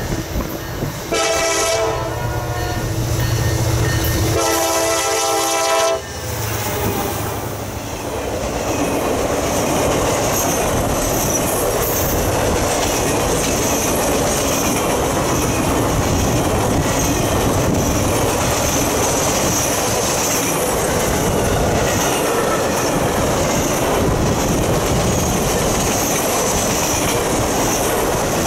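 Norfolk Southern freight locomotive's air horn sounding two blasts, a short one and then a longer one, as the train approaches. The locomotive then passes and a long string of Triple Crown RoadRailer trailers rolls by on their rail bogies with steady wheel clatter and rumble.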